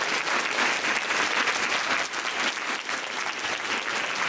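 Audience applauding: many hands clapping in a dense, steady stream.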